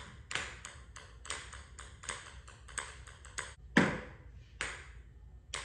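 Ping pong balls bouncing on a concrete floor: a quick, irregular run of light clicks, several a second, with a louder knock a little under four seconds in.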